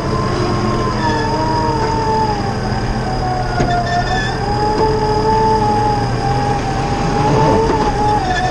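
Stuck Nissan Pathfinder R51's engine revving hard with its wheels spinning in sand, a high whine that wavers slowly up and down and cuts off suddenly at the end.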